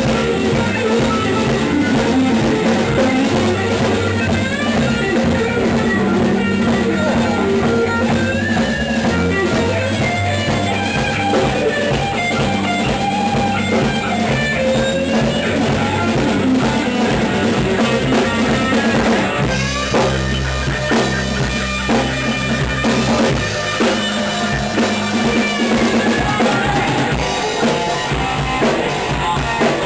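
Live rock band playing loud in a small room: electric guitar, electric bass guitar and a drum kit together, with the band changing to a new section about twenty seconds in.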